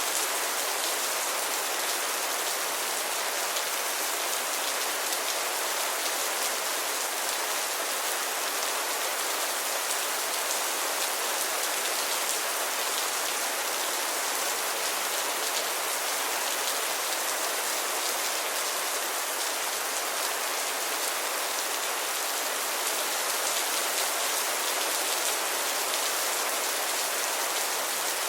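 Steady rainfall: an even hiss of many drops landing on a surface, without change or thunder.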